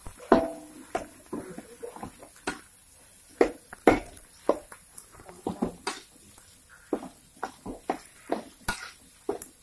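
Metal spatula clanking and scraping against a wok while stir-frying rice and egg, in irregular knocks, some of them sharp and loud.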